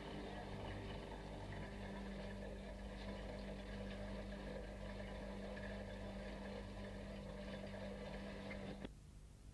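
Steady low mechanical hum over hiss, cutting off abruptly a little before the end.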